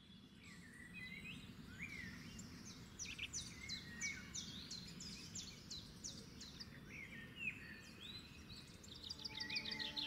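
Birdsong ambience fading in: several birds calling, with rising whistled notes and a run of quick downward-sweeping chirps, over a low steady background noise. Soft music begins to come in near the end.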